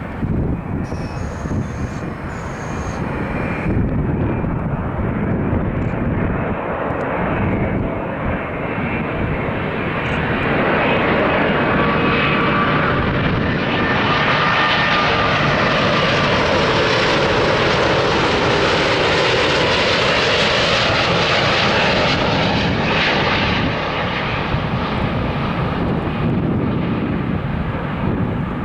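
Airbus A330-900neo airliner's Rolls-Royce Trent 7000 turbofan engines passing close by on arrival: a loud jet roar that builds, peaks with a whine falling in pitch as the aircraft goes past, then eases off.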